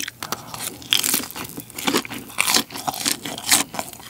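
Close-miked biting and chewing of a deep-fried japchae-mari, a glass-noodle-filled seaweed roll, its crisp batter crunching in a quick, irregular run of crackles.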